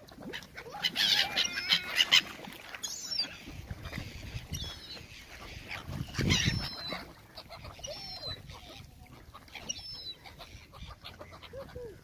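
A flock of gulls calling as they crowd in to be fed, with short, harsh cries repeated again and again and overlapping.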